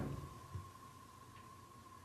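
Quiet room with a faint steady hum. The tail of a cat's rapid drumming on a door dies away at the start, and a single soft knock sounds about half a second in.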